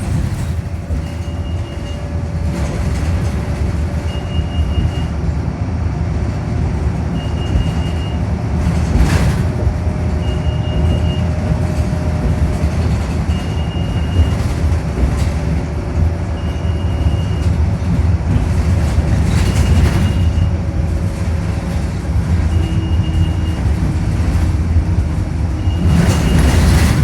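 A short, high electronic beep repeating about every three seconds inside a moving bus, over the steady low rumble of the engine and road.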